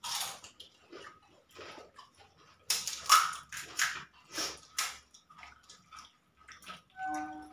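Crisp fuchka (pani puri) shells being cracked open by hand and crunched while eating: a string of short, sharp crackles and crunches, densest in the middle. A brief steady hum-like tone comes near the end.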